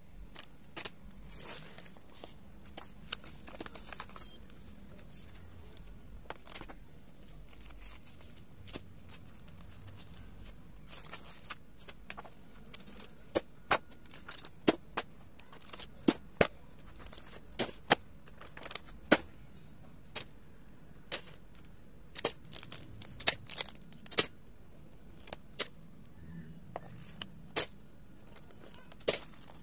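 Stationery being handled: a string of sharp clicks and taps, with light rustling of plastic and cloth. The clicks are scattered at first and come thick and fast from about halfway through.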